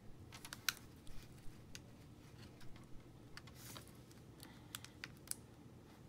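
Faint, irregular small clicks and taps of fingers handling a laptop battery cable's plastic connector, reseating the loose plug into its socket on the Chromebook motherboard.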